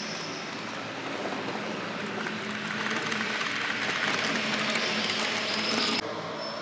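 H0-scale model passenger train running along its track, its rolling and motor noise growing louder over a few seconds as it passes close, then cut off abruptly about six seconds in; a steady hall hum remains after.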